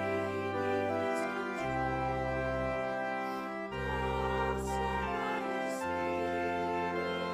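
Church choir singing a slow hymn to organ accompaniment, the organ holding sustained chords that change every second or so.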